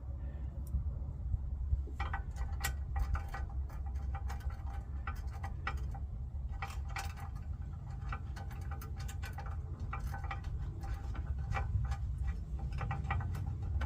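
Nuts and washers being threaded onto the skid-plate bolts by hand: a run of small, irregular metallic clicks and ticks that starts about two seconds in, over a steady low rumble.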